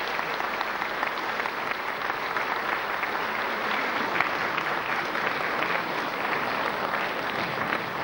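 A large seated audience applauding steadily: many hands clapping at once.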